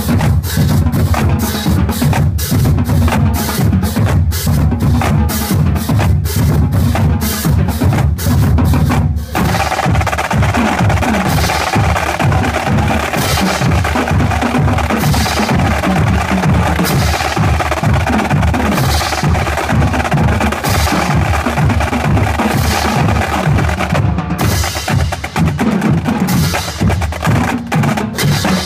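High school percussion ensemble playing drums: fast, dense snare and bass drum patterns with wood-block-like clicks. The pattern shifts about nine seconds in and again near the end.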